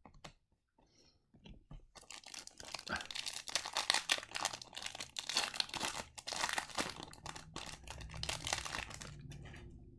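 Wrapper of a 2022-23 Extended Series hockey card pack being torn open and crinkled: dense crackling that starts about two seconds in and fades near the end.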